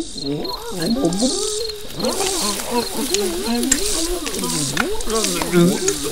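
Cartoon creature voices: warbling, wordless vocal sounds whose pitch slides up and down continuously, with a light crackle and a few small clicks.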